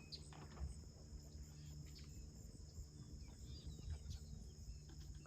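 Faint outdoor ambience: a steady high-pitched insect trill, like crickets, with a few faint bird chirps.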